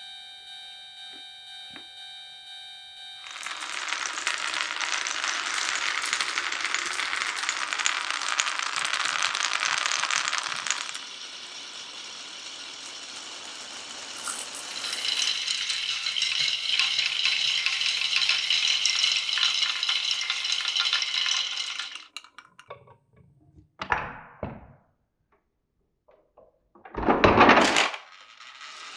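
Marbles rolling and clattering down a wooden marble run, a dense rattle that swells twice. Near the end it gives way to a few separate louder knocks.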